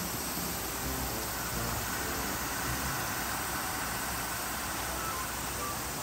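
Steady outdoor ambience: a constant hiss with a high, steady drone of cicadas.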